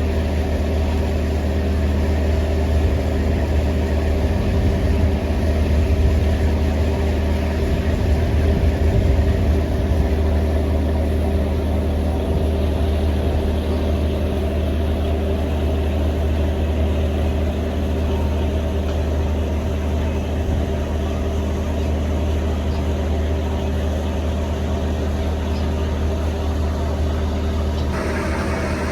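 Ferry boat's engine running steadily on board: a deep, even drone with a steady hum above it.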